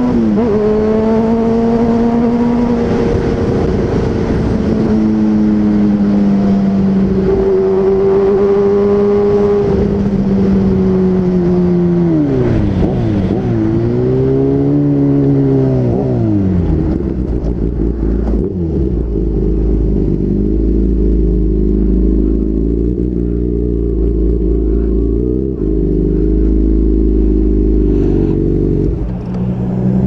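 Kawasaki ZX-6R's inline-four engine running at steady cruising revs, then the revs fall, rise briefly and fall again as the bike slows, settling into a low, steady idle with a deep rumble for the last dozen seconds before picking up again near the end.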